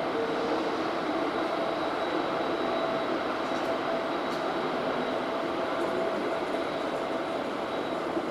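ChME3 shunting diesel locomotive's six-cylinder engine running steadily as it moves a passenger train slowly along the station tracks, with a thin steady tone over the engine noise.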